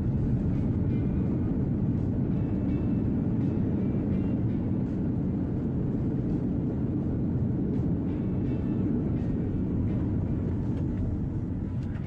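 Airliner cabin roar during the landing rollout just after touchdown, as the plane decelerates down the runway with its wing spoilers raised. The deep, steady rumble is loudest about a second in and eases off near the end.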